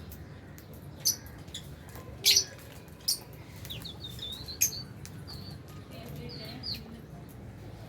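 Aviary lovebirds chirping: four loud, shrill chirps spaced about a second apart, with softer twittering calls between and after them.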